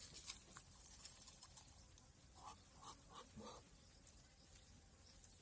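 Near silence, with faint scattered ticks and, about halfway through, four short, faint sounds in quick succession.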